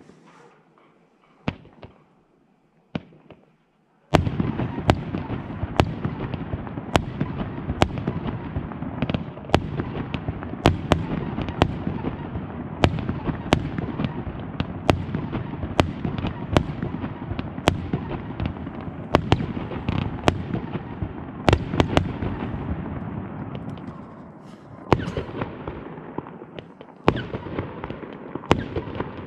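Fireworks going off: a few single bangs, then about four seconds in a dense barrage of rapid reports with frequent sharper, louder bangs. The barrage eases briefly near the end, then picks up again.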